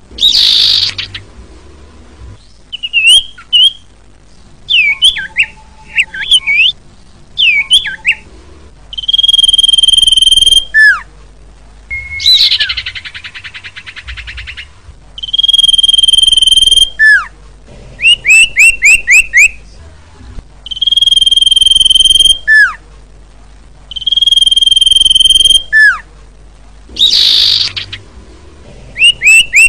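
Common iora (cipoh) calling, as a bird-trapping lure: long steady whistles, each ending in a short falling note, alternate with quick runs of falling chirps and a few harsh rasping calls.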